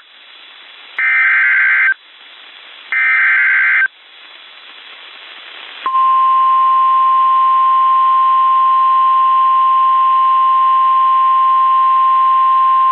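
Emergency Alert System SAME header: two short, harsh data bursts about a second long and a second apart. Then, about six seconds in, a steady single-pitch alert tone begins: the NOAA Weather Radio 1050 Hz warning alarm tone, signalling that a severe thunderstorm warning follows.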